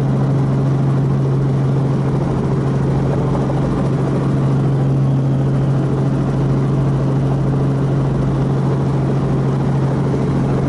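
A piston helicopter's engine and rotor heard from inside the cabin, running steadily while it hover-taxis. The sound is a constant loud drone with a strong low hum.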